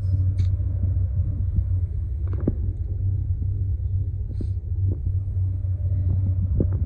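Steady low rumble inside a moving gondola cable car cabin, with a few light knocks and a sharper clunk at the very end.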